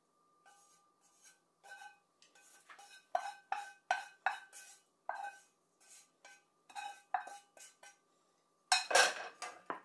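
Wooden cooking chopsticks knocking and scraping against a frying pan as stir-fried nanohana greens are pushed out onto a plate. The light taps come irregularly, with a faint metallic ring after many of them, and a louder clatter comes near the end.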